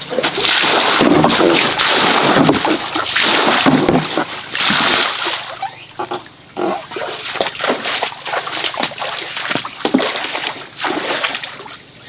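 Water splashing, heavy and continuous for about five seconds, then breaking into short separate splashes.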